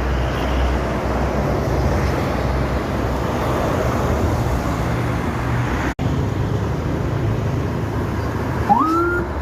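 Steady road-traffic noise with a bus engine's low rumble. The sound drops out for an instant about six seconds in, and a short tone rises and then holds near the end.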